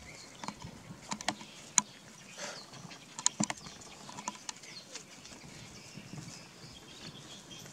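Two puppies play-fighting, biting and mouthing at each other: a scatter of short sharp snaps and clicks, loudest just before two seconds in and again around three and a half seconds, over faint rustling.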